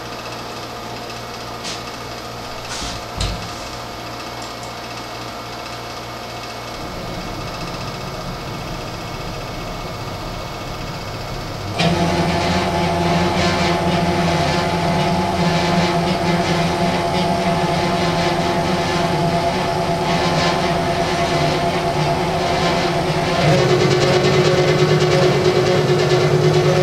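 CNC-converted RF-45 clone milling machine running a warm-up program, its axis drive motors moving the table. A fainter hum with a few clicks gives way about twelve seconds in to a much louder whine at several steady pitches, which shifts to a new pitch near the end.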